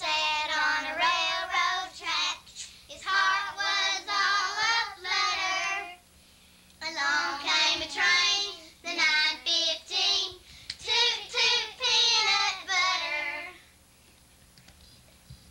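A child singing in a high voice, in phrases with short breaks, stopping about two seconds before the end.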